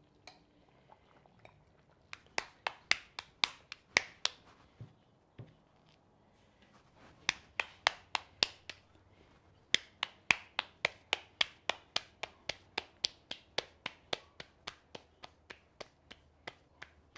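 Hands patting corn masa into tortillas. Palms slap the dough in quick runs of about four pats a second: one run starts about two seconds in, a shorter one about seven seconds in, and a long one from about ten seconds in, with brief pauses between them.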